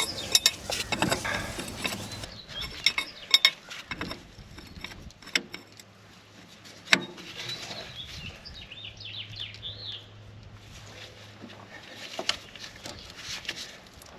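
Wrenches clinking and knocking against the steel fittings of a tractor's hydraulic steering line as a stuck inner fitting is worked loose: irregular metallic clicks and clinks, with one sharper knock about halfway through.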